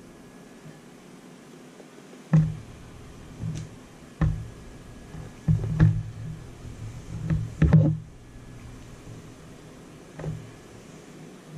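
Irregular knocks and clunks of a heavy RC crawler wheel and knobby tire being handled and set against a hard desktop. They come in a bunch from about two to eight seconds in, with one more near the end.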